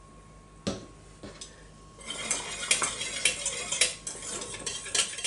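A single knock about half a second in, then from about two seconds in a utensil stirring béchamel sauce in a stainless steel saucepan, scraping and clinking against the pan.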